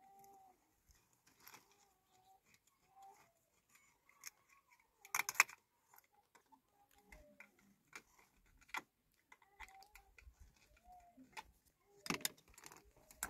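Faint clicking and scraping of hands and a small tool working on a plastic water-pipe stub in a wall, with two louder clattering bursts, about five seconds in and near the end. Faint short animal calls sound now and then behind it.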